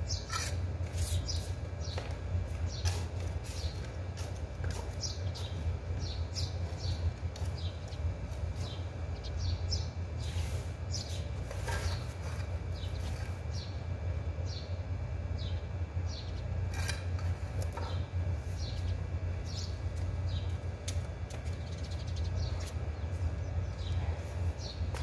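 Small birds chirping in quick short notes, over a steady low hum. A few soft scrapes and rustles from handling pots and soil, about ten and seventeen seconds in.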